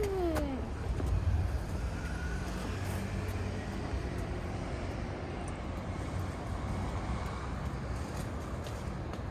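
A motor vehicle engine running with a steady low hum, under general outdoor street noise.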